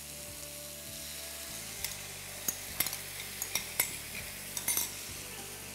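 Papaya pieces frying in oil in a wok, sizzling steadily as thin coconut milk is poured in. A run of sharp clicks and knocks from the bowl and spoon against the pan starts about two seconds in.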